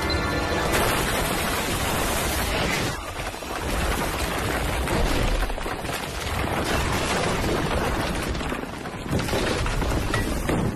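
Action-film sound effects: dense gunfire and booms over a music score.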